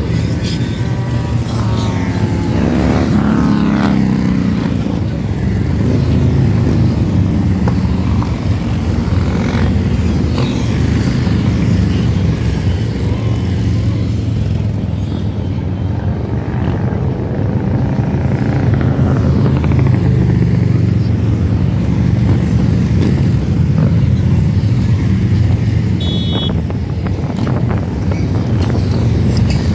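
A procession of motorcycles, mostly cruisers, riding past one after another with their engines running loudly. Individual bikes' engine pitch glides up and down as they pass, over a continuous low rumble.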